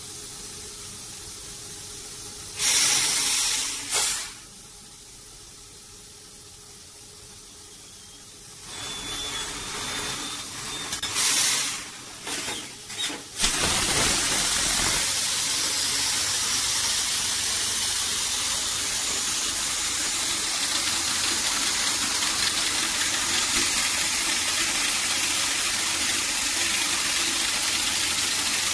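Hollow-bar soil-nail drill rig drilling a bar into the slope, a loud steady hissing rush that starts suddenly about halfway through and runs on. Before that, a short loud hiss about three seconds in and a few uneven spurts of hiss shortly before the drilling starts.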